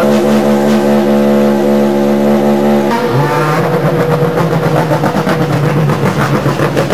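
Ferrari GT race car's V8 engine running at steady revs, close by. About three seconds in it gives way to a single-seater race car's engine, which starts lower, rises a little in pitch, then holds steady as the car drives along the pit lane.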